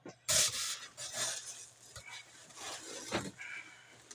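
Packaging being handled inside a cardboard box: irregular rubbing and scraping, loudest just after the start, with smaller scrapes about a second and three seconds in.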